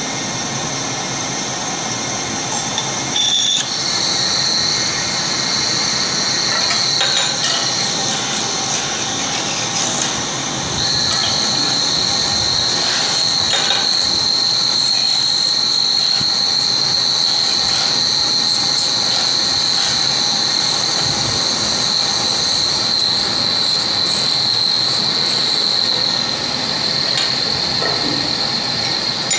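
Small metal-turning lathe running while a hand-held cutting tool is pressed against a spinning metal cone, giving a loud, steady high-pitched squeal. The squeal comes in about three and a half seconds in, drops away briefly around ten seconds, then carries on.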